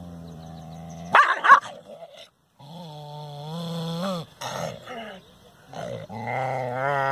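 A dog growling low and steady, with a loud bark about a second in. It growls again, its pitch rising at the end, and gives a few short barks. Near the end a higher, wavering snarl grows louder.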